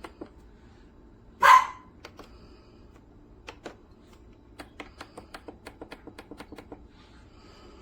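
A single short, loud bark-like sound about a second and a half in, followed a few seconds later by a run of quick light clicks, about six a second.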